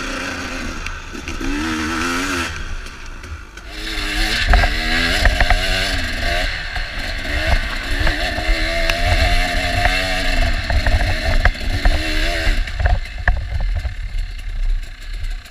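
Off-road dirt bike engine revving up and down as it is ridden over a bumpy dirt trail, with a steady rushing hiss and scattered knocks from the bike over the ground. The engine eases off near the end.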